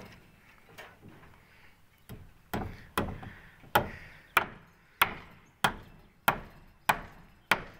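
Hammer blows on a wooden formwork post, a steady run of sharp knocks about one and a half a second. They are faint and scattered at first and grow louder about two and a half seconds in.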